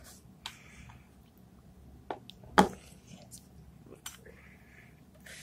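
A few scattered clicks and clacks of steel drill bits and fittings being handled and set back into a moulded plastic case, with one sharper clack about two and a half seconds in.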